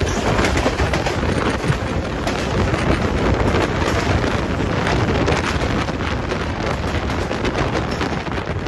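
A train passing close by at speed: a loud rushing noise with rapid clattering of wheels on the rails throughout.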